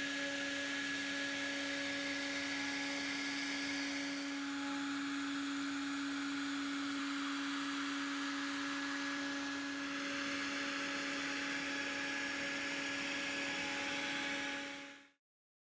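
CNC router spindle running with a steady whine over an even hiss as the bit routs a carbon fibre sheet, the sound dropping away quickly near the end.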